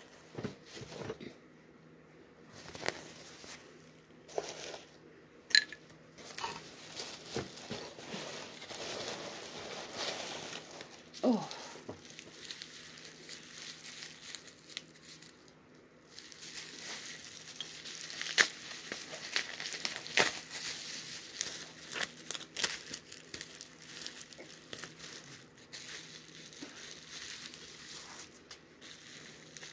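Plastic bubble wrap crinkling and rustling as it is handled and unwrapped, with many short, sharp crackles.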